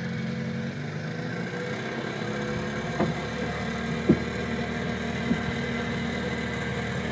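A small boat's outboard motor running steadily at low speed, its note easing slightly about a second in. Three short sharp knocks sound about three, four and five seconds in; the one near four seconds is the loudest.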